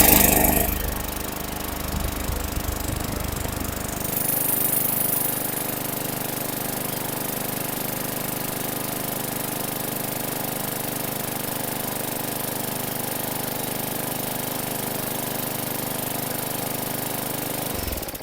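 Bolens walk-behind lawn mower's small engine catching and then running at a steady speed, started on its own without starting fluid after sitting all winter.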